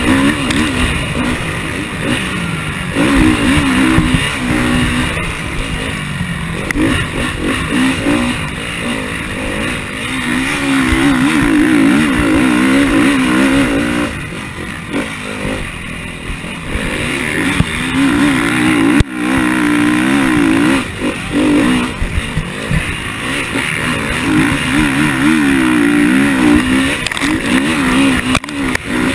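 KTM motocross bike's engine heard from on board, revving up and falling back again and again as the rider accelerates, shifts and eases off around the track.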